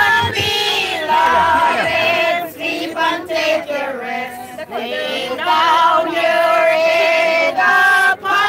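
A congregation singing a hymn together, with long held notes.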